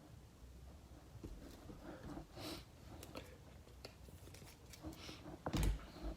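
Soft clicks and rustles of trading cards being handled and flipped through, with a single heavier thump about five and a half seconds in.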